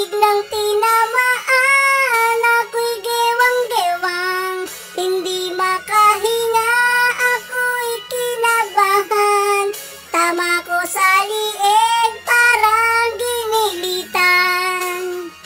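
A high-pitched singing voice over faint backing music, holding wavering notes with a couple of short breaks.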